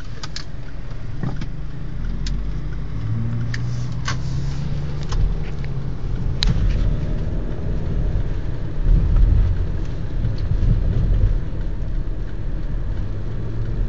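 Car engine and road noise heard from inside the cabin while driving, a steady low rumble that grows a little heavier in the second half, with a few scattered light ticks.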